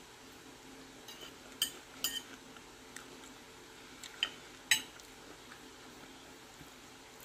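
Metal cutlery clinking against a dinner plate, a few sharp clinks with a brief ring, the loudest about halfway through.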